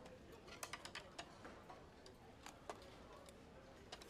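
Near silence with scattered faint clicks and ticks, irregularly spaced.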